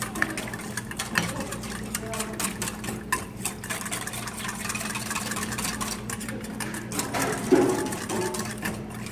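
Small wire whisk stirring a thin flour, oil and water batter in a stainless steel bowl, the wires ticking and scraping rapidly against the metal. A brief louder thump comes about seven and a half seconds in.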